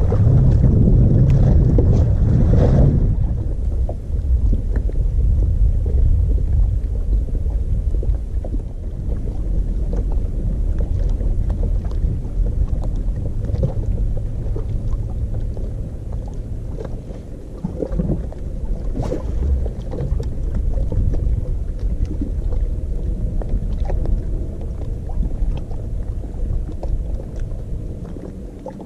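Wind rumbling on the microphone, heaviest in the first few seconds, with water lapping and splashing lightly against the kayak's hull.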